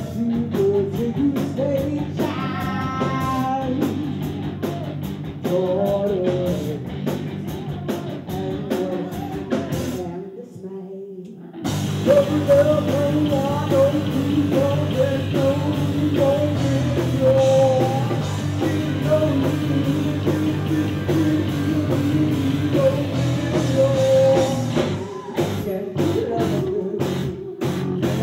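Live rock band with electric guitar and drum kit, and a woman singing over it. About ten seconds in the band drops back to a low note for a moment, then comes back in louder, with sharp drum hits standing out near the end.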